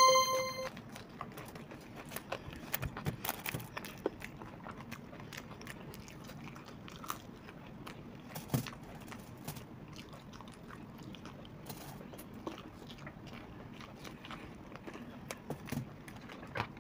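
People chewing and crunching fried Indian snacks close to the microphone, with scattered crisp bites. A short electronic beep sounds at the very start.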